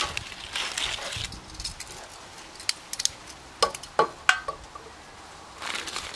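A plastic sausage package rustling and crinkling, with four or five sharp metal clinks at the grill about three to four seconds in.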